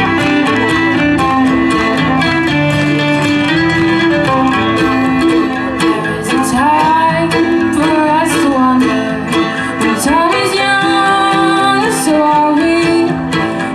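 Acoustic bluegrass string band playing an instrumental passage, with guitar prominent and a melody line sliding between notes in the middle.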